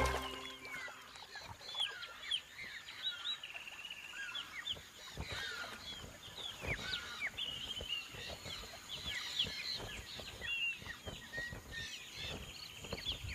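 A chorus of wild birds calling: many short, rising and falling chirps and a few quick trills, overlapping throughout, with scattered low thumps of large wings flapping.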